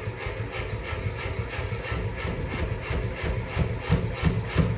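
A 250 lb ram-weight mechanical power hammer running on its new motor at about a quarter throttle. The ram cycles in an even rhythm of about four to five blows a second, a little heavier in the last second or so. It is running smoothly.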